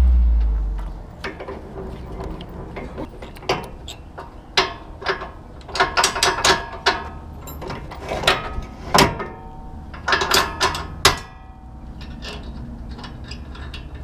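Metal clanking, clicking and rattling of a utility trailer's jack post and hitch being worked by hand: a run of sharp clanks, loudest and thickest between about four and eleven seconds in.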